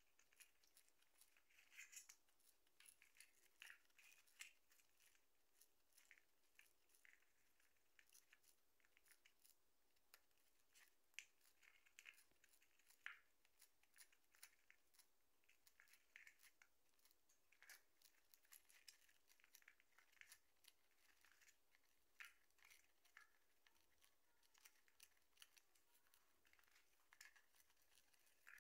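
A lovebird's beak snipping and tearing at a cardboard tube: faint, irregular crisp snips and small tearing sounds, some coming in quick runs.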